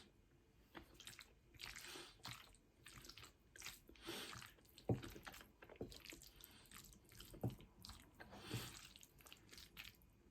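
Close-up chewing: soft, wet mouth sounds of someone eating, with a few sharp clicks, the loudest about five seconds in and again about seven and a half seconds in.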